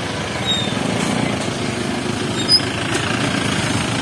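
Small vehicle engines running close by, a steady, fast-pulsing rumble from the scooters and a pickup pulling past. A brief high click about two and a half seconds in.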